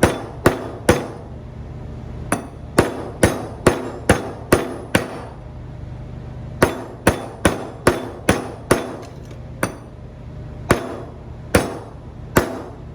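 Hammer tapping steel on steel: an old bearing race laid on a new one is struck to drive the new race into the wheel hub of a John Deere 24T baler. The light, sharp taps come about two a second in four short runs with brief pauses. They are eased in slowly so the race goes in straight without cocking and locking in the bore.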